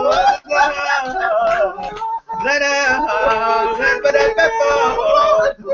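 Wordless a cappella singing with sliding pitch. There is a brief break about two seconds in, then long held notes.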